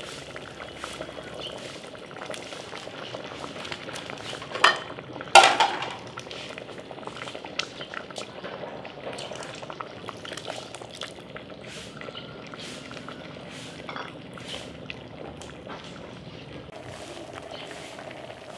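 A pot of ooti, a Manipuri stew of greens, boiling hard, with a steady bubbling and popping. Two sharp knocks about four and a half and five and a half seconds in stand out as the loudest sounds.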